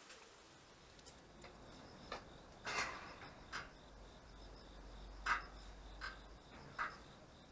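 Short knocks and clicks, about six spread irregularly, as the pull-up handles of an outdoor exercise station are gripped and worked through pull-ups. A faint, steady, high insect trill runs underneath.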